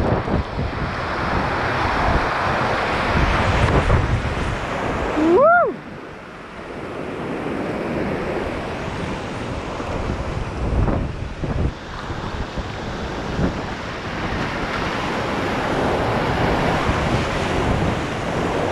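Rushing river water around a kayak, with wind buffeting the microphone. About five seconds in, a short high call rises and falls in pitch.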